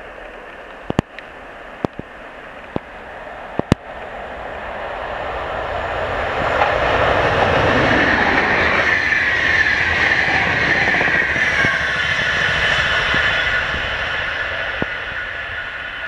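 Electric-locomotive-hauled express passenger train passing at speed: the rumble of wheels on rail swells and peaks as the locomotive and coaches go by, with a high whine that drops in pitch, then slowly fades. A few sharp clicks come in the first four seconds, before the train arrives.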